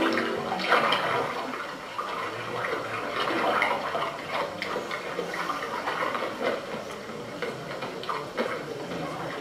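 Water splashing and sloshing in short, irregular bursts.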